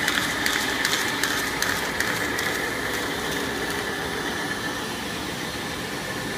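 Baumfolder 1320-H continuous-feed buckle folder running while it folds parchment paper: a steady mechanical hum with a high whine, and irregular clicks over the first two seconds or so.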